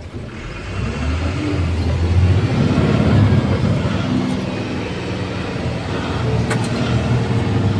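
Heavy diesel machinery running steadily with a low rumble, growing louder about two seconds in and then holding.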